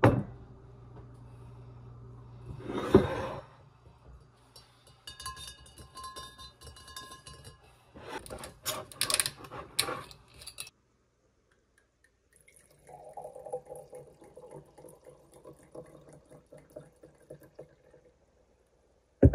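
Knocks and clinks of a glass wine bottle and a champagne flute set down on a counter, then rosé wine poured into the flute for several seconds in the second half.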